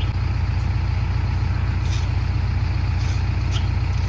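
Diesel engine of a Schwing Stetter SLM 600 self-loading concrete mixer running steadily with a fast, even low throb, and a few faint clicks on top.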